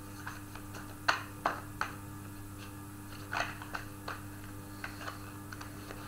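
Tarot cards being handled on a table: scattered light clicks and taps, the loudest just over a second in, over a steady low hum.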